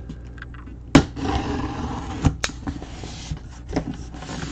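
A cardboard box being opened by hand. A sharp knock about a second in is followed by about a second of scraping and rustling cardboard, then two more knocks and softer handling.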